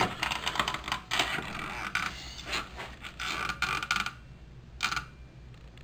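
Handling noises at a mitre saw: a strip of pine knocking and scraping as it is slid into place against the fence, with clicks and creaks from the saw's mechanism as the blade is brought down to the line. A busy run of knocks for about four seconds, then one more a second later.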